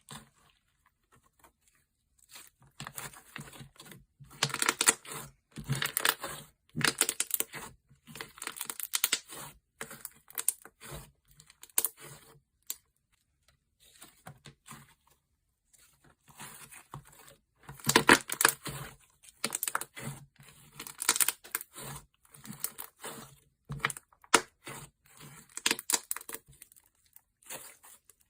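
Thick slime being squished and stretched by hand, giving bursts of sticky crackling and popping. There is a pause of a few seconds near the middle.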